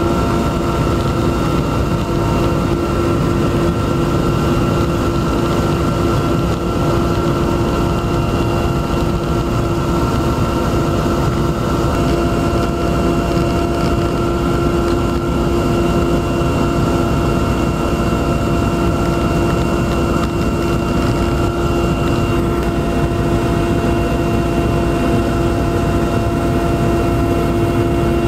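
Aircraft engine noise heard inside the cabin in flight: a steady droning hum over an even rushing noise.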